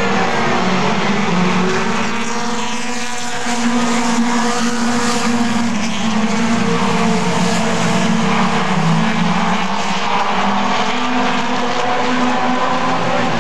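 A pack of four-cylinder Super 4 late model stock cars racing at speed, their engines running loud and steady, with several engine notes overlapping and rising and falling in pitch as the cars pass and work through the corners.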